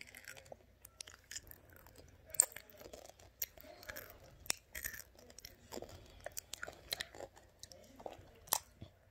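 A child chewing a crisp-shelled sweet treat close to the microphone: irregular crunches and crackles with soft wet mouth sounds, the sharpest crunch about two and a half seconds in.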